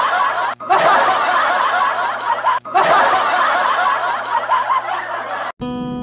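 Laughter, in three stretches broken by brief gaps, cut off near the end by plucked guitar music.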